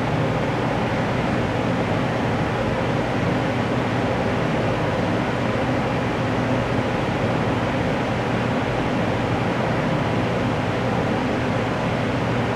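Steady, even rushing noise with a faint low hum underneath, unchanging throughout. No alarm tone, horn pattern or sweep is heard.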